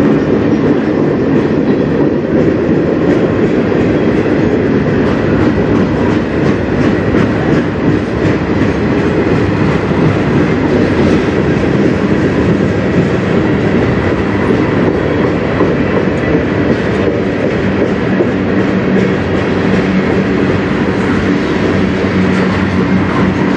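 Freight cars of a manifest freight train rolling past close by: boxcars and covered gondolas on steel wheels, a loud steady rumble with many small clicks of the wheels on the rail.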